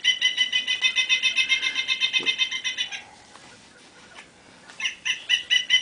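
Recorded woodpecker call being played back: a rapid series of repeated high, nasal notes, about six a second. It breaks off about three seconds in and starts again near the end.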